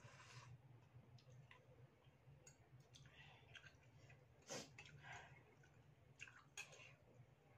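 Faint close-up eating sounds of soup noodles: a slurp at the start, then chewing and a few light clicks of the metal fork and spoon, the sharpest about halfway through, over a low steady hum.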